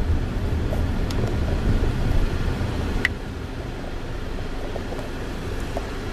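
Steady low road and engine rumble inside a moving car's cabin, with two light clicks, about a second in and about three seconds in.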